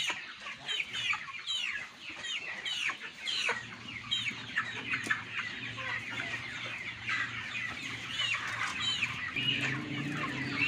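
Kampung (Indonesian native) chickens calling over and over in short calls, several a second, many falling in pitch, while they are caught and held upside down by the legs. A faint steady low hum comes in about four seconds in.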